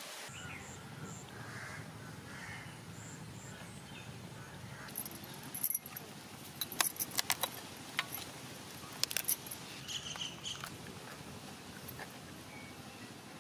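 Crab shells being cracked and cut apart by hand with a blade: a run of sharp cracks and clicks in the middle, a few more a little later. Birds chirp and call in the background.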